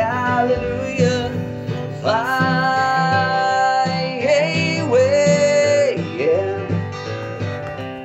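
Country song: singing over acoustic guitar, the voice holding long notes.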